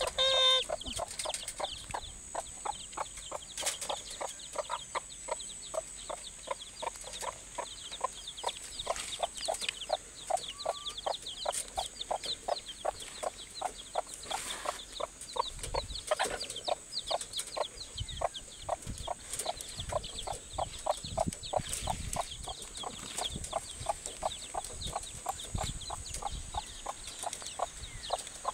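Hens clucking in a steady, quick series of about three clucks a second, with days-old chicks peeping thinly above them. One louder call comes at the very start.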